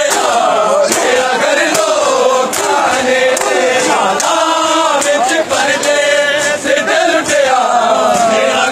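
Crowd of men chanting a noha, the Shia lament, in unison. Sharp slaps of hands on bare chests (matam) keep a steady beat, a little faster than one a second.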